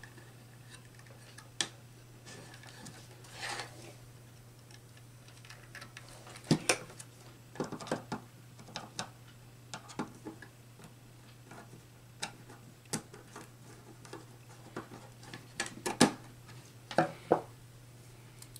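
Irregular small clicks and knocks of a screwdriver and wire leads being worked at the terminal screws of a power supply and a magnetic contactor, over a steady low hum.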